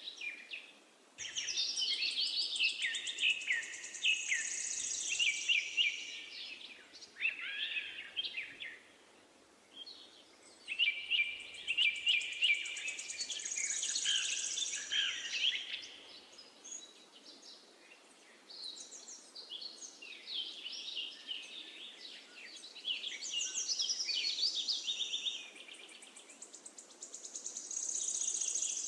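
Birdsong: a bird singing long, varied phrases of quick chirps and trills, each lasting a few seconds with short pauses between them.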